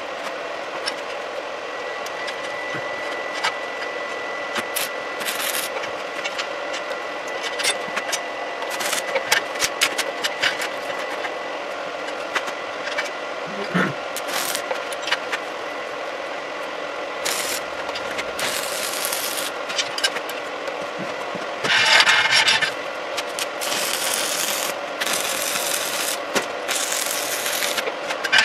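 Stick (shielded metal arc) welding arc crackling in several bursts over the last third, the loudest just past two-thirds of the way through, as tack welds are struck to join bevelled steel plates. Before the arc, scattered clicks and taps of metal parts and tools being handled.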